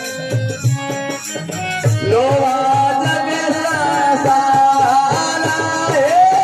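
Rajasthani folk bhajan music: harmonium and drum. Sparser playing at first; about two seconds in, a long held melody line comes in that bends in pitch.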